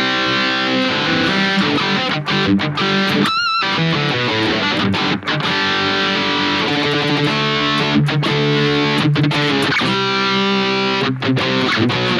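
Harley Benton Fusion electric guitar playing distorted rhythm chords through a Fractal Audio FM9 modeler's high-gain rhythm tone. About three and a half seconds in, the chords break for a single note held with vibrato.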